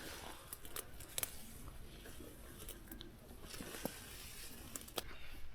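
Soft rustling with scattered light taps and clicks, irregular and quiet, from hunters moving carefully on foot.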